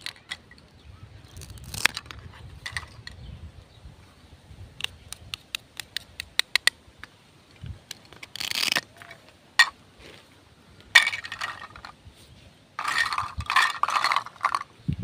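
Plastic toy fruit and vegetables being cut apart with a plastic toy knife: the halves, held together by hook-and-loop pads, pull apart in short rasping rips, three of them in the second half. Before that comes a quick run of light plastic clicks as the pieces are handled and set down.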